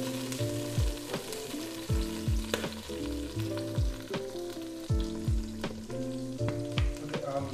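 Garlic and tomato relish frying in oil in a pot, a steady sizzle with small crackles. Under it plays background music with a deep bass-drum beat and held bass notes.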